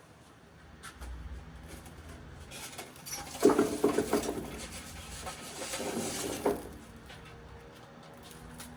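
A few seconds of irregular crackling and rustling, scraping handling noise, sharpest about a third of the way in. It fits food or utensils being worked around a cast-iron skillet.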